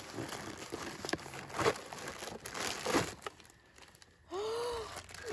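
Cardboard gift box being opened and a plastic bag crinkling as a hat is pulled out of it, with a few sharper snaps and rips, stopping a little over three seconds in. A short vocal 'ooh' of surprise follows near the end.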